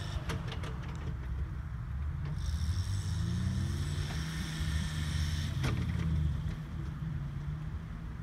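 Engine of a VW LT 4x4 van running at low revs as it crawls up a sandy off-road slope, the revs rising a little about three seconds in. A few clicks sound near the start, and a knock a little before six seconds.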